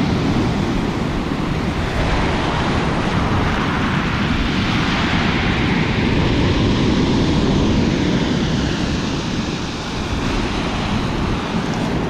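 Stormy sea surf breaking and washing up a pebble beach: a loud, steady rush of water that swells for a few seconds in the middle as a wave comes in.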